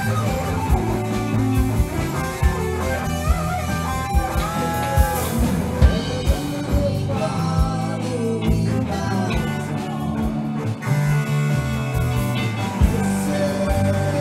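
Rock band playing, with guitar to the fore over bass and a steady beat of drum hits.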